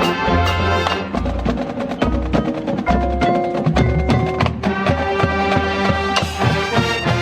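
High school marching band playing, with dense, rhythmic percussion strikes and ringing pitched notes over the band.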